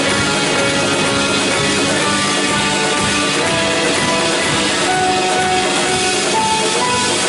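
Church worship band playing an instrumental passage between sung lines, led by guitar, with held notes changing every second or so and no singing.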